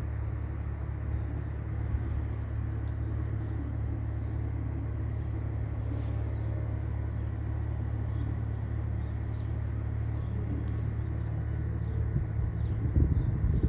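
A motor running steadily: a low rumble with a constant hum, a few faint clicks, and some louder low knocks near the end.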